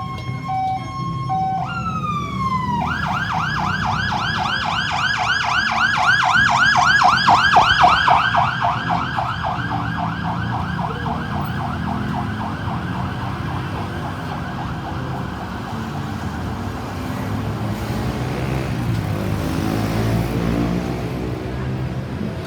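Ambulance's electronic siren, first a stepped two-tone pattern, then after a short downward glide about three seconds in a fast yelp. It grows loudest as the vehicle passes around eight seconds in and fades away over the following seconds, leaving the low rumble of road traffic.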